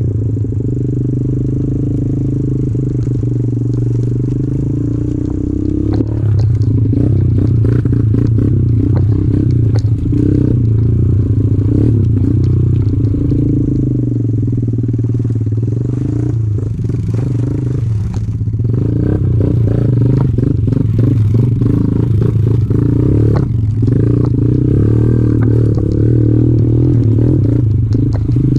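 Kawasaki KLX110 pit bike's small single-cylinder four-stroke engine running under way on a dirt trail. The engine note rises and falls with the throttle and steps up about six seconds in, with the bike rattling and clattering over the rough ground.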